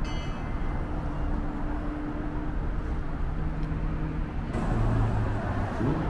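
Steady low rumble of road-vehicle noise with a faint hum, shifting in character about four and a half seconds in.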